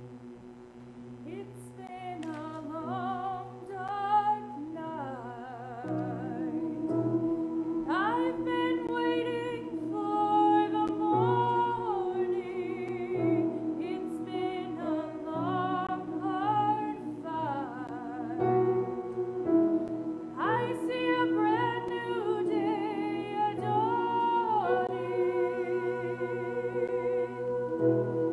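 Small mixed church choir singing a slow song with piano accompaniment, the voices coming in about two seconds in over held low notes and swelling as they go on.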